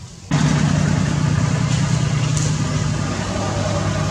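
A steady, loud engine hum, like a motor vehicle idling close by, that starts abruptly about a third of a second in and holds unchanged.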